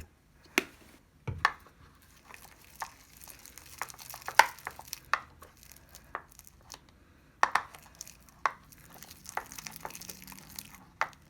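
Thick glue-and-cornstarch slime paste being stirred: irregular sticky clicks and crackles, with a few sharper clicks.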